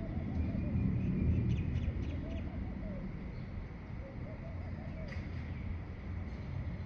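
Birds calling: a string of short, low, arched calls and a few brief high chirps, over a steady low rumble.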